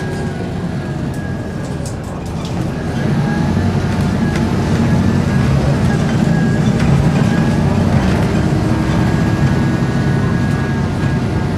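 Volvo B7RLE bus's six-cylinder diesel and ZF automatic gearbox working under load, getting louder about three seconds in as the bus pulls harder, with a steady high whine over the low drivetrain rumble. The groaning on acceleration is of unknown cause; the owner suspects an engine belt.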